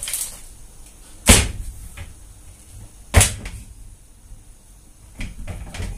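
A hammer striking a wooden skylight frame to seat it against the underside of a van's steel roof: two sharp, loud knocks about two seconds apart, with a few lighter knocks near the end, echoing in the bare metal van body.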